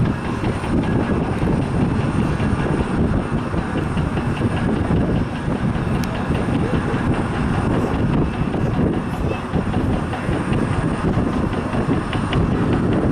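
Jet airliner engines heard from the ground: a loud, steady rumble, mostly deep, with no break.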